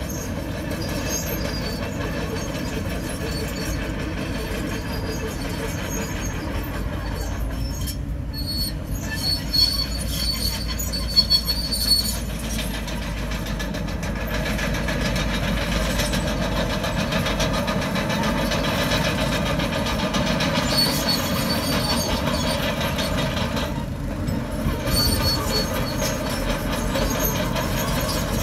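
Komatsu crawler bulldozer at work: a steady diesel engine with its steel tracks running, and high thin squeals now and then.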